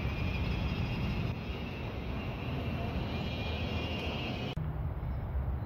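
Steady low rumble of distant engine noise. About four and a half seconds in, the higher hiss drops out abruptly while the rumble goes on.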